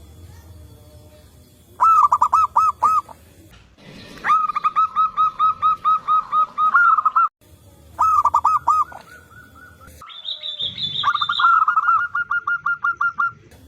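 Zebra doves cooing in four bouts of rapid, repeated high notes. The bouts start and stop abruptly, and briefly near the end a higher, thinner series of notes sounds above them.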